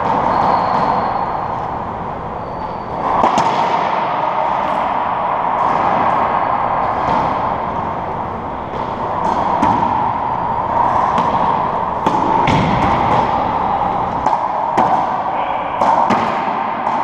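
Racquetball being played: a string of sharp, irregularly spaced hits as the ball is bounced, struck by racquets and rebounds off the walls and hardwood floor of the enclosed court, over a steady background hum.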